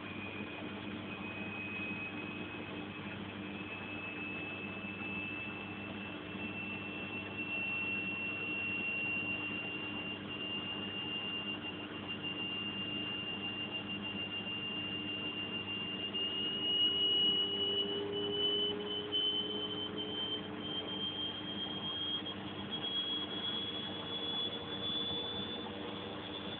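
Bosch washing machine's motor whining as the drum speeds up in the final spin: a high whine climbing slowly in pitch over a steady hum, with a second, lower whine joining about two-thirds of the way in and also rising.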